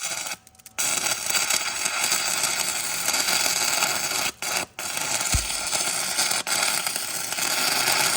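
Stick-welding arc burning a 6010 rod on a steel golf cart frame: a harsh, steady crackling hiss that strikes up about a second in and briefly cuts out twice around the middle as the arc breaks and restrikes. The welder set at 90 amps, which he judges way too hot.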